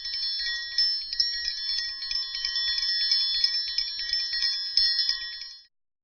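A metal bell-type percussion instrument ringing, struck rapidly and repeatedly so that its high tones sustain as a shimmering roll, then stopping shortly before the end.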